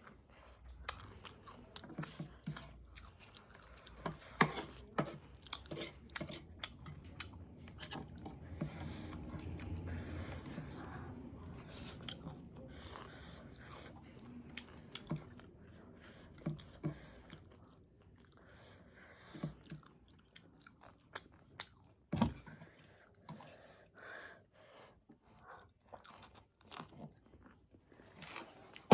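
A person chewing and biting food close to the microphone, with many short, irregular crunchy clicks.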